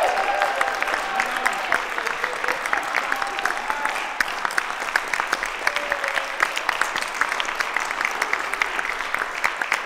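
A small seated audience clapping steadily, with voices calling out over the applause in the first couple of seconds.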